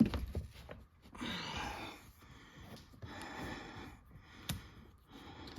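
Two long, noisy breaths and some handling noise, with a sharp click about four and a half seconds in.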